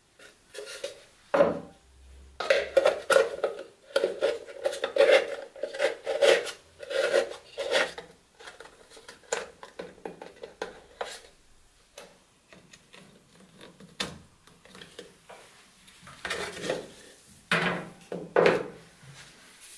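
Hands handling and fitting parts into a small painted plywood box: irregular rubbing, scraping and knocking of wood, with short clicks. It is busiest in the first half and again near the end.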